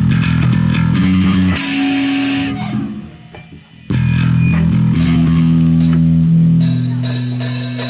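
Live rock band opening a song: electric guitar and bass hold one long chord, drop out briefly about three seconds in, then hit and hold a second long chord with drum and cymbal hits.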